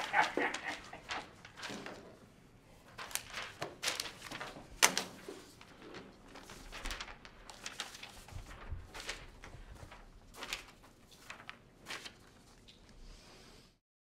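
Sheets of paper rustling and being shuffled as quiz papers are handed over and handled, with scattered short crisp rustles and light knocks in an irregular rhythm. The sound cuts out briefly near the end.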